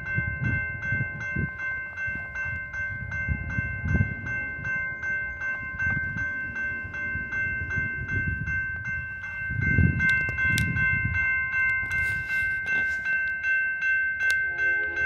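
Railroad grade-crossing warning bell ringing in a steady, rapid run of dings as the crossing signals activate. A second, lower-pitched bell joins near the end, over uneven low rumbling from wind on the microphone.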